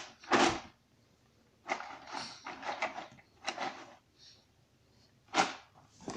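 A jigsaw puzzle box being opened by hand: a series of short scrapes and rustles of the packaging, most of them between about two and four seconds in.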